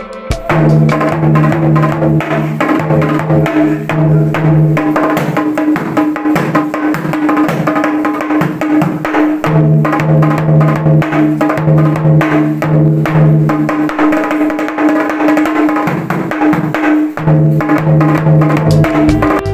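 Background music with fast percussion playing over held low notes.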